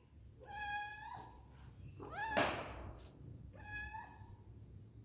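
Domestic cat meowing three times, about a second and a half apart; the middle meow rises in pitch and is the loudest, ending with a short thump.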